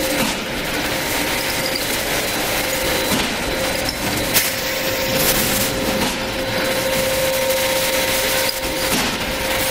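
Automatic bottle sticker-labeling machine running: conveyor and labeling-head motors giving a steady mechanical whir with a constant hum, and one sharp click a little past the midpoint.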